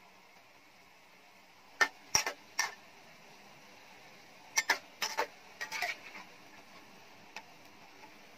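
Metal spatula clinking and scraping against a metal wok while turning a pork and bean-sprout stir-fry, in two clusters of sharp clinks, about two seconds in and about five seconds in, and one light tap near the end. A faint steady hiss runs underneath.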